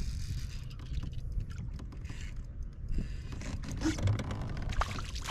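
Steady low rumble of wind and water around a fishing kayak, with scattered clicks and scrapes of gear knocking on the kayak from about three seconds in.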